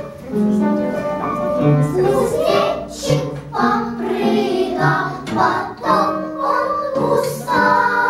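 Children's song with instrumental accompaniment; a small ensemble of young girls sings along, their voices joining partway through.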